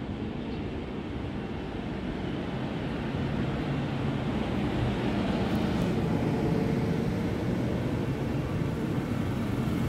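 Deutsche Bahn Intercity coaches rolling along the platform: a steady rumble of wheels on rails that grows gradually louder.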